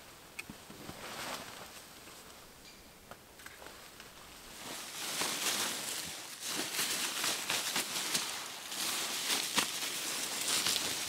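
A nylon tarp rustling and crinkling as it is pulled down and bunched up by hand. It is sparse at first, then denser and louder from about four seconds in.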